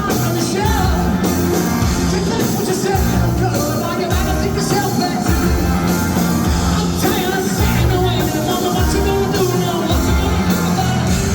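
Live rock band playing a song, with a man singing over the band.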